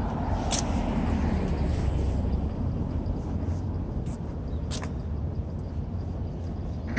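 Outdoor seaside ambience: a steady low rumble, heaviest in the first couple of seconds, with two or three brief high chirps or clicks.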